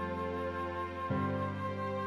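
Slow, sad background music of long held notes, changing to a new chord about a second in.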